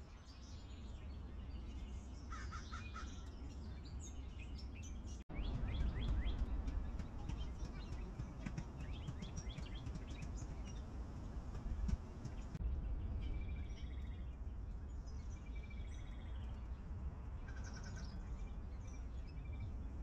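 Several birds chirping and calling over a steady low rumble. The background changes abruptly about five seconds in and again around twelve seconds, where clips are joined.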